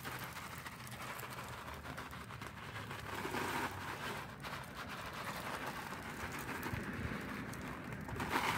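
Plastic bag rustling and crinkling as crispy French fried onions are shaken out of it and patter onto a casserole, with a louder crinkle near the end.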